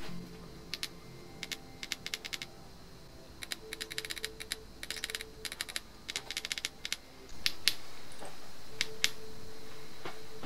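Buttons on a President Randy III handheld CB radio being pressed, giving sharp clicks, some single and some in quick runs as the menu settings are stepped through. Faint background music plays underneath and gets louder a little after seven seconds.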